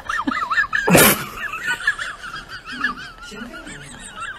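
High-pitched, wavering laughter that giggles on throughout, with a sharp noisy burst about a second in.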